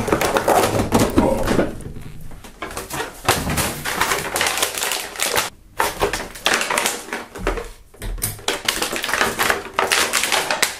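Clear plastic action-figure packaging crinkling and rustling as the figures are pulled out and handled, with dense, irregular clicks and taps. There are short lulls about two and five seconds in, and the sound cuts off suddenly at the end.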